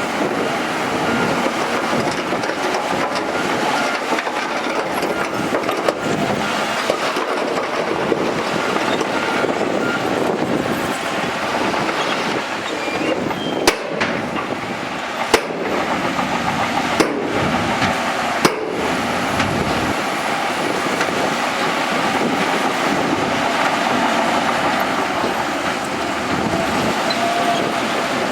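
Crawler bulldozer working, its engine running and its steel tracks clattering steadily, with four sharp knocks near the middle.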